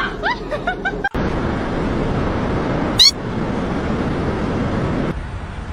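Cat mewing in a run of short rising calls. Then a steady rushing noise with one loud, sharp rising meow about three seconds in.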